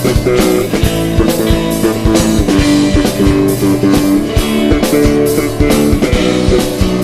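Gospel band music with electric guitar and drum kit playing an instrumental passage, with a steady beat.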